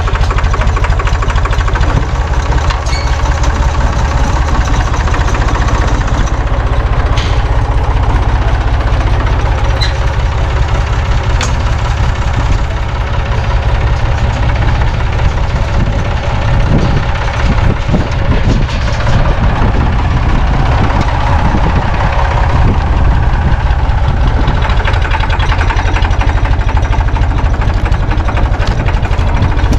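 Small farm tractor's engine running steadily as it drags a rear ripper shank through the roots of a tree stump.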